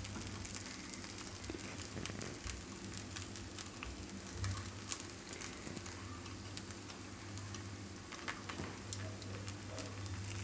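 Appe frying in an appe pan over a gas flame: a faint, steady sizzle with scattered small pops and clicks, and a few light knocks as the dumplings are turned in their hollows. A low steady hum runs underneath.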